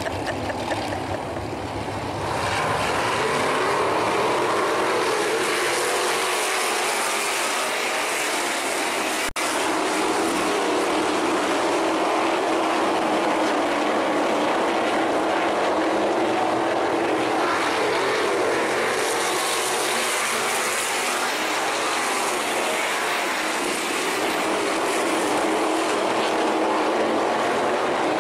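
A pack of sprint cars racing on a dirt oval, their engines making a dense, steady noise that gets louder about two seconds in, with a momentary break about nine seconds in.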